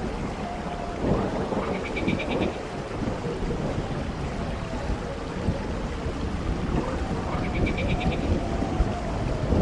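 Storm ambience sound effect: a steady low rumble with a rain-like hiss and a faint wavering whistle. A short, high, rapid trill is heard twice, about six seconds apart.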